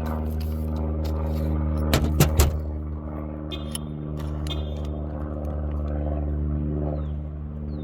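A steady motor hum, even in pitch, broken by a few sharp knocks about two seconds in.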